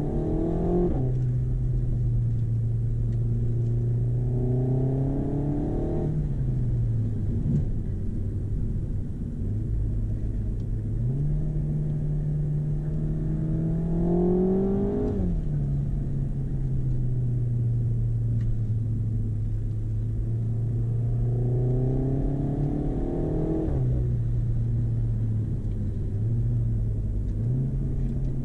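Renault Megane RS Cup's 1.8-litre turbocharged four-cylinder engine pulling hard through four rising surges, its pitch climbing steadily and then dropping suddenly at each upshift. Between the pulls it runs at a steadier, lower note.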